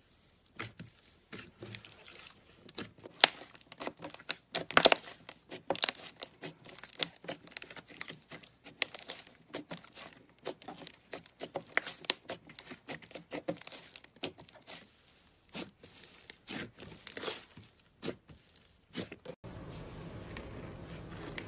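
Hands squishing, pressing and stretching thick fluffy slime: a dense, irregular run of sharp wet crackles and clicks, loudest about five seconds in and again near seventeen seconds. About nineteen seconds in, the crackling stops abruptly and gives way to a soft steady hiss.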